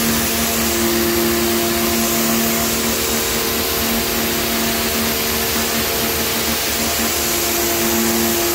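Pressure washer running steadily: its pump motor hums under the hiss of the water jet spraying onto concrete tiles.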